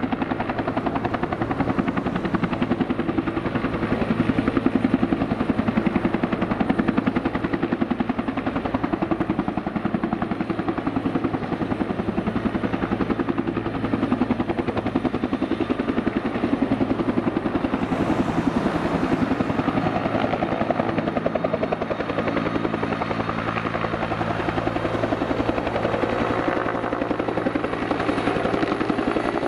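Bell 212 helicopter hovering low, its two-bladed main rotor beating in a fast, even pulse over the steady turbine whine.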